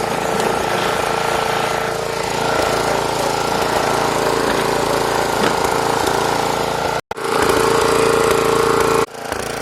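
Snapper riding lawn mower engine running steadily. The sound cuts out abruptly for an instant about seven seconds in, then drops in level about nine seconds in.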